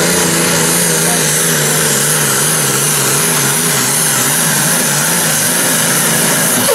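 Diesel engine of a limited super stock pulling tractor at full throttle, dragging a weight-transfer sled down the track. It runs loud and steady with a strong hiss on top, and its pitch wavers up and down as it pulls.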